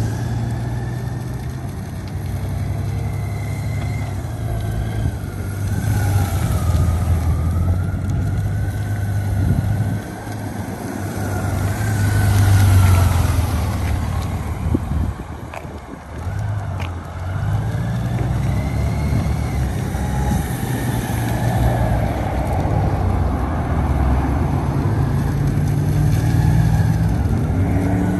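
Honda Gold Wing's flat-six engine running at low speed, its note rising and falling with the throttle as the bike circles, easing off twice. A wavering higher whine rises and falls over it.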